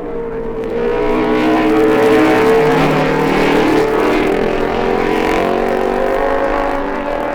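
Racing motorcycles passing at race speed: John Hartle's MV Agusta four and Jim Redman's Norton single, with another machine following, their engines overlapping at different pitches that rise and fall. The sound swells about a second in and stays loud.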